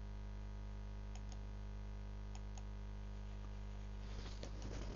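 Steady low mains hum with faint pairs of short clicks twice, a computer mouse button pressed and released. Near the end come a few more scattered faint clicks and noise.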